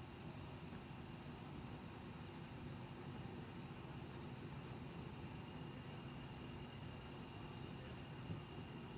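Insects chirping: a high chirp in runs of about eight quick pulses, repeating every three seconds or so, with a thinner steady trill between runs, over a low steady rumble.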